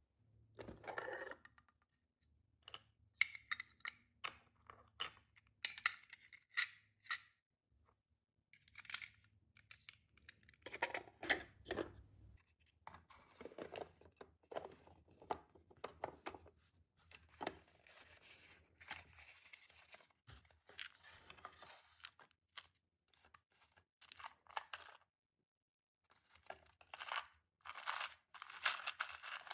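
Small plastic miniature pieces and their packaging handled close up: light clicks and taps mixed with rustling and tearing of plastic wrap, in irregular bursts with short pauses.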